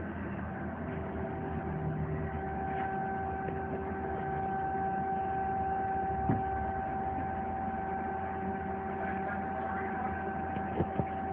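2006 Mazak Quick Turn Nexus QTN350 CNC lathe running under power: a steady high-pitched whine over a low hum. A few light clicks sound about six seconds in and again near the end.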